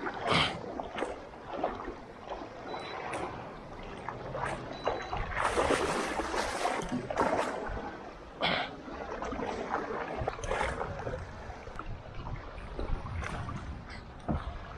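Someone wading through shallow seawater: irregular splashes and sloshing with each step, a few louder splashes midway.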